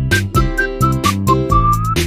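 Background music: a melody of short, high whistle-like notes over a steady beat and bass line, one note sliding upward near the end.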